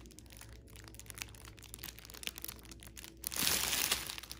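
Clear plastic sleeve of small zip bags full of diamond-painting drills crinkling as it is handled and turned, with scattered small crackles and a louder rustle about three and a half seconds in.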